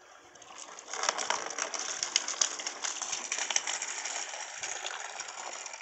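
Soapy drain water from an LG front-load washer gushing out of the drain hose and splashing into a plastic tub: the washer's drain pump emptying the wash water. The splashing starts about a second in, with many small clattering splashes, and tails off near the end.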